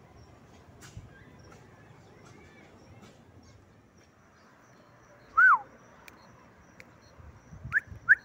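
A bird calling: one loud whistled note falling in pitch about halfway through, then two short rising notes close together near the end, over faint outdoor background noise.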